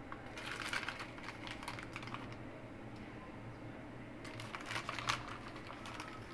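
Quick, light clicks and taps from spoon and container handling as cornflour is spooned over the spiced fish pieces, in two spells: one over the first two seconds and a shorter one a little past the middle.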